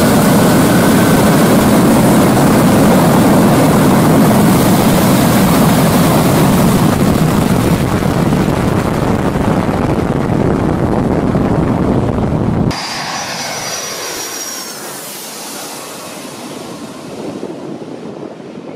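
A loud, steady roar that cuts off abruptly about thirteen seconds in. After it comes the quieter sound of a jet airliner on low final approach: an engine roar with a faint high whine, building a little toward the end.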